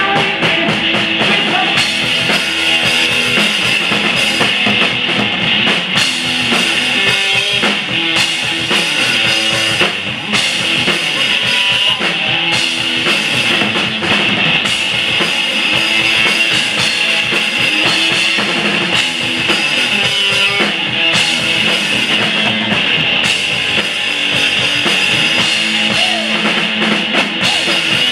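Live rock music from a guitar-and-drums duo: an electric guitar playing a loud riff over a drum kit.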